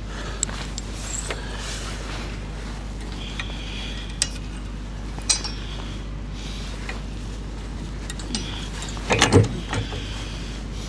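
Light metal clinks and taps as steel washers and a bolt are handled and fitted on a steel hinge pin, over a steady low hum. A louder cluster of knocks comes about nine seconds in.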